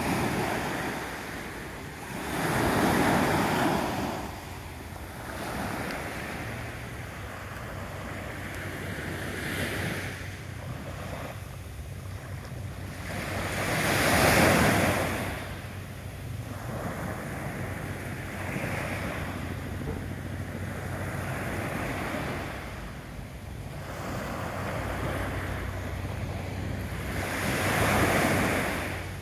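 Small waves on a calm sea breaking and washing up a sandy beach. The surf swells into a louder crash three times, about 3 seconds in, about halfway and near the end, with softer washes of foam between.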